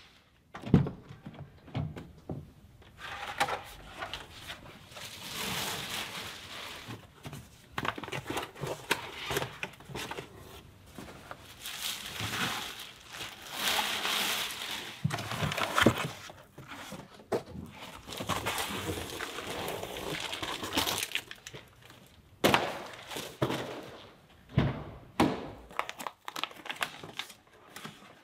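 Clear plastic protective seat covers crinkling and rustling as they are pulled off a new car's seats, and cardboard protectors rustling as they are lifted out, with a few sharp thunks along the way.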